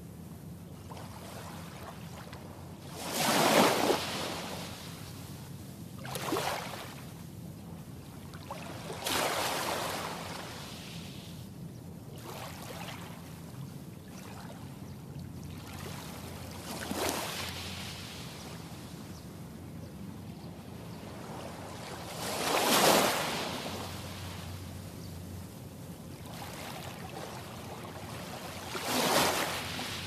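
Small waves breaking gently on a sandy shore: six soft washes a few seconds apart, each swelling to a short hiss and fading, over a faint steady low hum.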